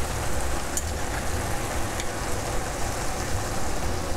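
Sofrito of vegetables and sweet peas sizzling steadily in a skillet, over a low steady hum.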